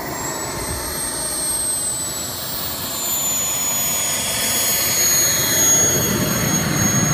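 Small gas turbine of a radio-controlled model jet running on the ground, a thin high whine over a rushing roar that grows steadily louder.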